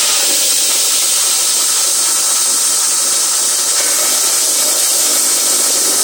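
Steady high-pitched whistling hiss from under the bonnet of a Ford Mondeo Mk3 just after a cold engine start, the engine running; the whistle is an unexplained fault noise that appears on cold starts.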